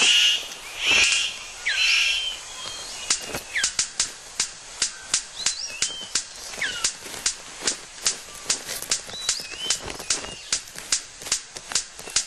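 Male superb bird-of-paradise giving his courtship display call: a few louder harsh bursts in the first two seconds, then a steady run of sharp clicks, about three to four a second, with short whistled notes sliding up and down between them.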